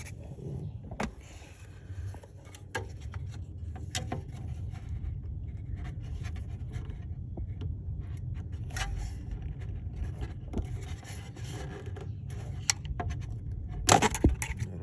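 Hands working a brittle plastic wiring connector off an engine coolant temperature sensor: scattered small clicks and scrapes over a low steady rumble, with a louder clatter near the end.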